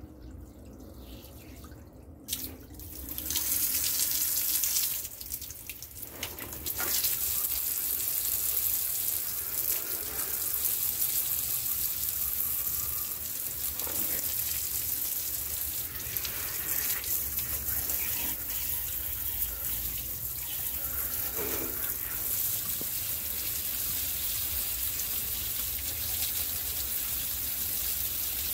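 Jet of water spraying onto a bicycle's rear cassette and chain, rinsing the degreaser off the drivetrain: a steady hissing splash that starts about three seconds in, drops briefly, then keeps going.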